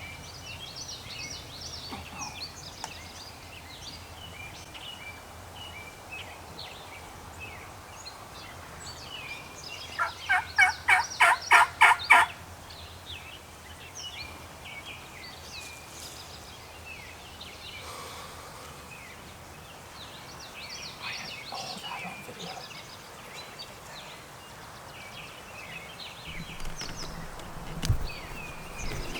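A wild turkey gobbles once, loud and close, about ten seconds in: a quick rattling run of about nine notes lasting two seconds. Songbirds chirp softly throughout.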